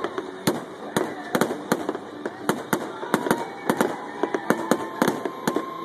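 Aerial fireworks display bursting overhead: a rapid, irregular string of sharp bangs, two or three a second.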